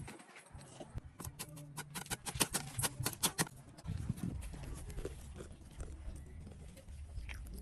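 Kitchen utensils tapping and clattering in quick succession for a couple of seconds, then a low steady rumble.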